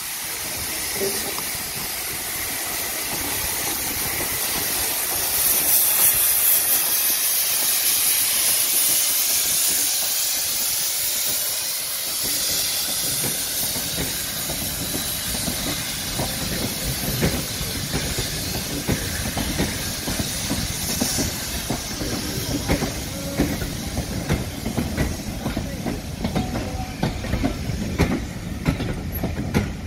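Steam locomotive hissing steam as it pulls a train away. About halfway through, the hiss gives way to the train passing close by, its wheels knocking and clicking over the rail joints.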